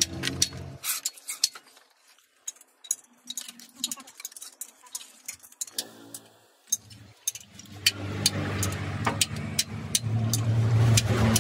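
Sharp metallic clicks and clinks of tools and parts being handled at a truck's opened differential housing. A steady engine hum is heard in the first second and comes back about eight seconds in, staying to the end.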